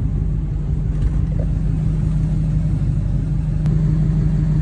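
Diesel truck engine running steadily, heard from inside the cab as a constant low hum.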